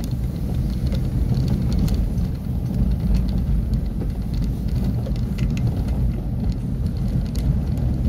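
Car interior noise while driving slowly on a city street: a steady low rumble of engine and tyres on the road.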